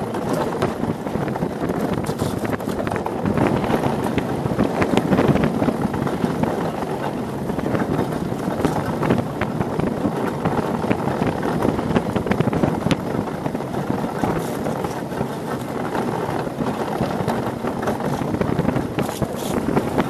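Monotype XV ice yacht sailing fast at about 22–23 knots: a steady rushing rumble of its runners on the ice mixed with wind on the microphone, with scattered sharp ticks throughout.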